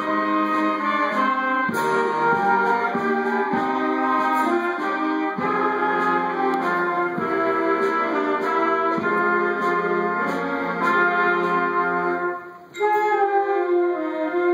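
Student concert band playing: flutes, saxophones and brass together in sustained chords. Near the end the band stops briefly, then comes back in more softly.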